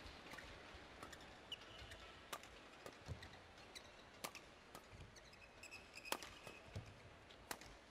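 A badminton rally heard faintly: racket strings striking the shuttlecock in sharp cracks every second or two, with short shoe squeaks on the court floor.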